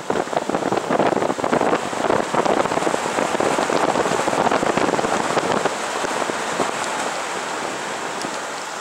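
Wind buffeting a camera microphone held out of the window of a moving car: a rough, crackling rush that eases off over the last few seconds.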